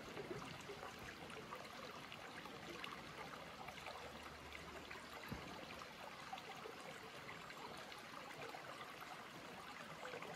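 Faint, steady trickle of shallow water. A single soft knock about five seconds in.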